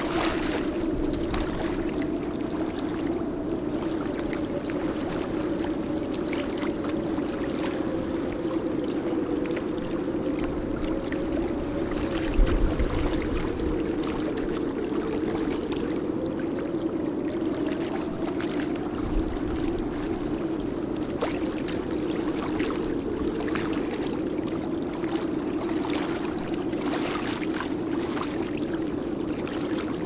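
A steady low drone with a fainter tone above it that slowly wavers up and down, over a light wash of water noise; a brief low thump about twelve seconds in.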